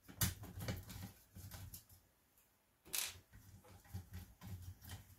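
Hand screwdriver backing small screws out of an Apple II floppy drive's logic board: a run of small clicks and scrapes of metal on metal, with a louder, longer scrape about three seconds in.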